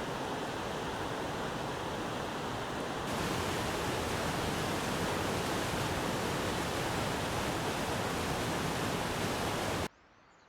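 Steady rush of flowing water, like a river or stream, with no other distinct events. About three seconds in it gets a little louder and brighter, and it cuts off suddenly just before the end.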